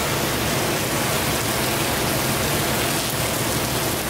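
Heavy rain pouring down in a steady hiss, with wind blowing through.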